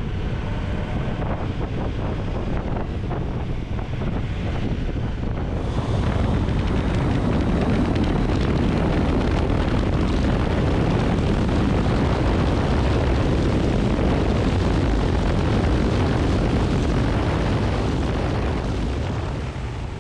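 A KTM adventure motorcycle's engine running under way, with the rush of wind on the bike-mounted microphone. The noise steps up, louder and fuller, about six seconds in, as the bike rides at speed on the open road.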